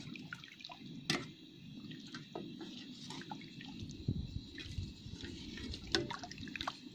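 Metal ladle stirring and scooping thick curry broth in a stainless steel pot: liquid sloshing and dripping, with a few clinks of the ladle against the pot, the sharpest about a second in.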